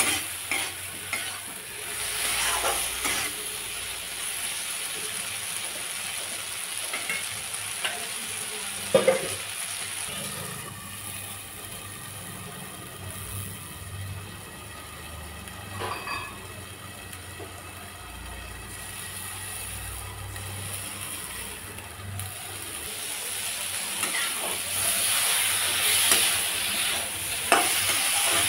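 A spatula scraping and stirring vegetables frying in a kadai, with sizzling; a sharp knock about nine seconds in. Through the middle it settles to a quieter, steady sizzle while the pan is covered with a glass lid, and the scraping and stirring pick up again near the end.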